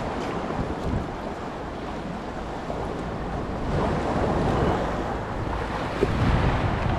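Sea waves washing over a rocky shore, with wind buffeting the microphone; the wash swells louder about halfway through, and there is a single small knock near the end.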